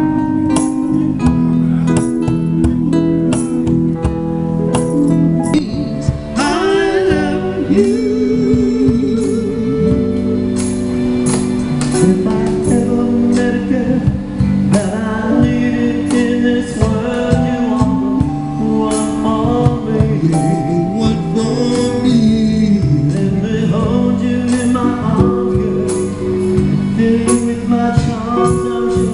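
Live band playing a song: singing over electric keyboard and guitar, with a steady beat.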